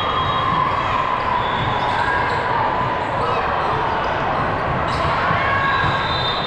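Busy indoor volleyball gym: a steady din of crowd and players, with a few sharp strikes of balls being hit or bouncing on the courts.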